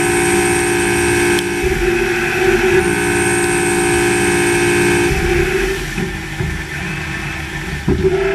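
Machining equipment running with a steady multi-tone whine that cuts out about a second and a half in, comes back near three seconds, and stops again about five seconds in, leaving a lower, rougher machine noise.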